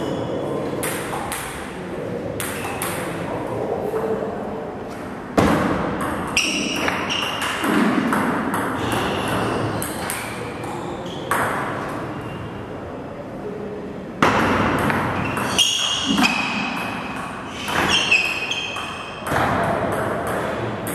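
Table tennis ball clicking off the rubber-faced bats and the table during serves and rallies, each hit ringing briefly in a reverberant hall. A few short squeaks from shoes on the sports floor.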